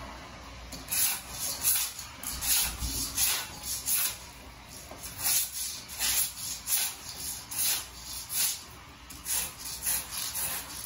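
Hand scraper scraping dried glue and carpet backing off a subfloor in quick repeated strokes, about two a second, with a couple of short pauses.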